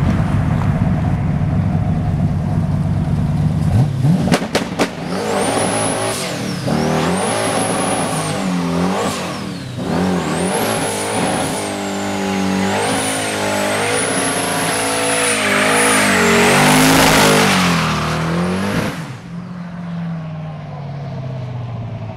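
Twin-turbo 383 stroker V8 of a 1990 Chevrolet pickup doing a burnout. A few sharp bangs come about four seconds in. The engine then revs up and down for about fifteen seconds under a high wavering tyre screech, and drops to a lower, steadier note near the end.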